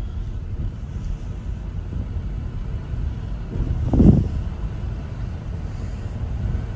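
Steady low rumble of a 2006 Range Rover Sport's engine and tyres heard from inside the cabin while it is driven slowly, with a brief low thump about four seconds in.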